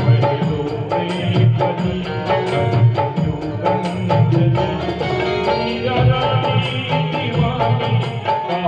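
Instrumental interlude of Indian devotional music: a hand drum keeping a steady rhythm under a sustained melodic instrument.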